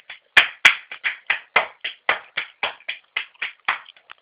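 Hands clapping steadily, about four claps a second, dying away near the end.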